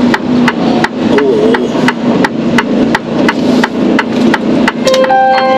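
Rapid, even ticking, about five clicks a second, inside a Mercedes Actros heavy-haulage truck's cab. Near the end a phone starts ringing with a melodic ringtone.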